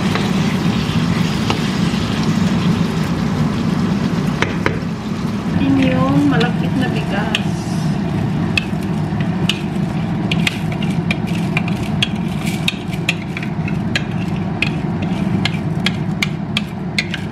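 Pork and chicken hearts sizzling steadily in a frying pan, stirred with a wooden spatula. About halfway in, turmeric glutinous rice is poured into the pan and scraped out of a bowl with a metal spoon, giving a quick run of sharp clicks and taps over the sizzle.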